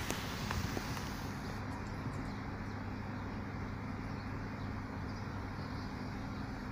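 Steady low rumble of distant traffic with a constant hum. The high squealing noise of a passing train dies away in the first second and a half.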